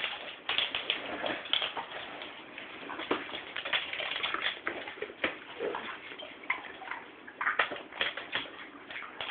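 Staffordshire bull terriers scuffling in play, with scattered clicks and taps.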